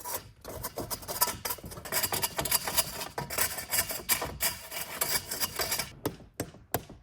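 A pole scraping and rasping up and down inside a wood stove's stovepipe, breaking up the tar buildup that has clogged the flue; near the end the scraping gives way to a string of separate knocks.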